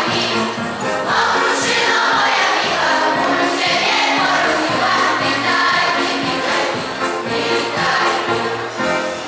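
A choir singing a Polish Christmas carol (kolęda) with instrumental accompaniment.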